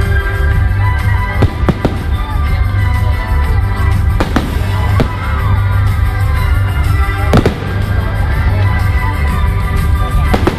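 Aerial fireworks bursting overhead: several sharp bangs over a constant low rumble, with music playing throughout.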